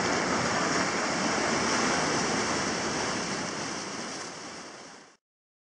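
Sea surf breaking and washing up a sandy beach, a steady rush of water that fades out over its last second or two and stops about five seconds in.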